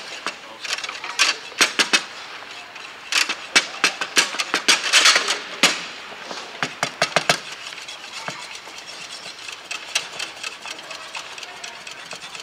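Foosball play on a Bonzini table: sharp clacks of the ball struck by the rod figures and hitting the table walls, with the rods knocking. Quick runs of clacks come about three to five seconds in and again around seven seconds, with scattered single knocks between.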